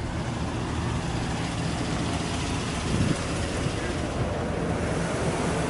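Pickup truck's gasoline V8 engine idling steadily, a low even hum.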